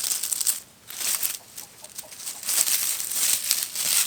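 Rustling and crackling in bursts, loudest at the start and through the second half, with chickens clucking faintly.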